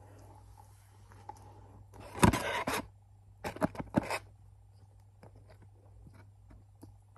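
Rustling and crinkling of takeout food packaging being handled close to the microphone, in two short bursts about a second apart, with a few light clicks afterwards.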